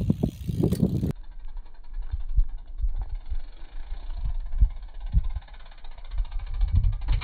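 Wind buffeting the microphone: a loud low rumble that swells and drops in irregular gusts.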